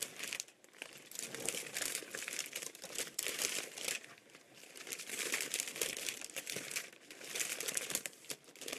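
Large cellophane bag crinkling loudly as a wreath is slid into it and the bag is worked over it by hand, in several spells with short lulls between them.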